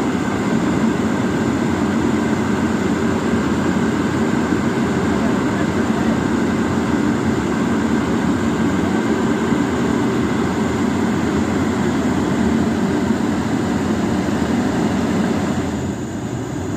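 Excavator's diesel engine running steadily under load, easing off slightly near the end.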